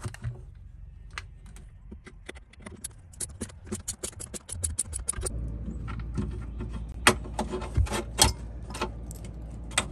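Cordless drill-driver backing out the last screw from a steel electrical box. A run of rapid clicks comes first, then the motor runs as a steady low hum from about halfway. A few sharp metal clanks come near the end as the box is worked loose.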